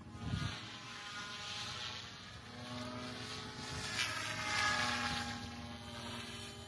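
SAB Goblin 380 electric radio-controlled helicopter in flight: a whine from its motor and rotor blades that bends up and down in pitch as it manoeuvres, loudest about four seconds in.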